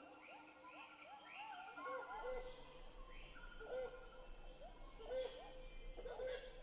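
Rainforest chorus of calling animals: many short, arching whooping calls repeating over and over, with higher chirps and trills above them and a steady high whine underneath.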